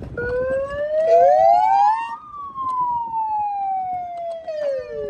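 A siren wailing: a long tone that rises for about two seconds, then falls slowly, with a second rising tone overlapping it briefly.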